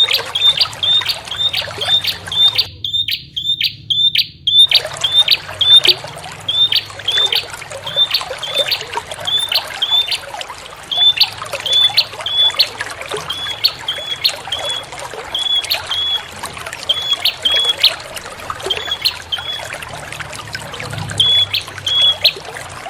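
A prenjak (prinia) calling in a repeated series of short, sharp high notes, fast at first and later in spaced pairs and triplets, over a steady trickle of running water. The water briefly cuts out a few seconds in while the calls go on.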